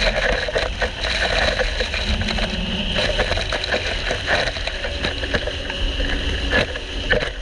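Sea-Doo GTI jet ski running at speed through chop, a steady dense rush of engine, hull and spray dotted with crackling splashes. Wind and water rumble on the microphone of the camera mounted on the craft.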